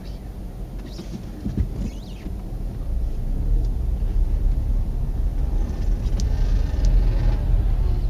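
Car driving, heard as a steady low rumble of engine and road noise, growing louder about three seconds in.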